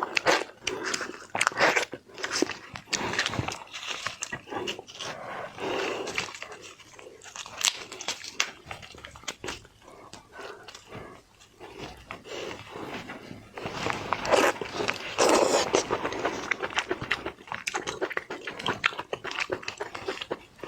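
Close-miked eating of raw-marinated shrimp: wet chewing, sucking and lip-smacking with many short crunchy clicks, busy and irregular throughout.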